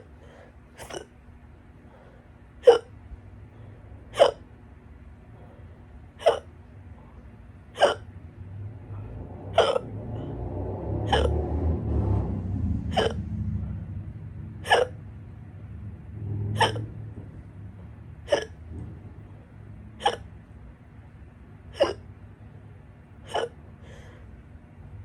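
Loud human hiccups, a sharp short hic about every one and a half to two seconds, about fifteen in all, from a persistent bout of hiccups. A low rumbling noise swells under them in the middle stretch.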